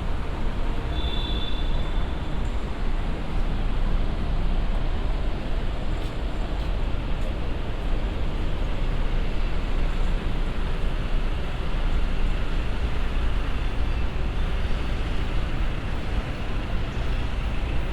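Steady low rumble of city traffic on a busy street, with a brief high tone about a second in.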